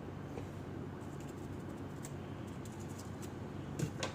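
Steady low background hum with scattered faint clicks, and two slightly louder taps near the end, as a phone and small tools are handled on a workbench.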